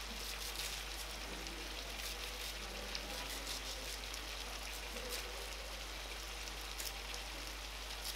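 Chicken pieces frying in a pan: a steady sizzle with scattered crackles.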